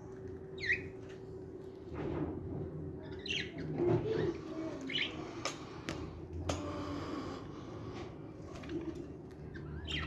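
Budgerigars in a cage: a few short scattered chirps, one falling in pitch near the start, with wing flaps and several sharp clicks around the middle.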